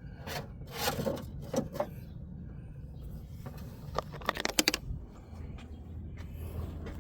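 Parts and tools being handled during a coolant reservoir replacement: a few knocks and scrapes, then a quick run of sharp clicks about four seconds in, over a steady low hum.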